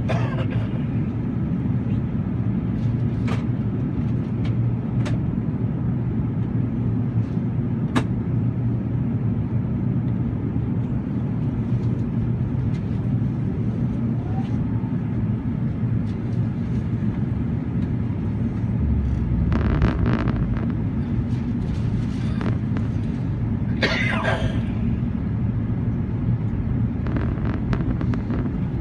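Steady low drone of engine and airflow noise inside the cabin of an Airbus A380 in flight. A few light clicks come early on, and two brief rustling noises come about twenty and twenty-four seconds in.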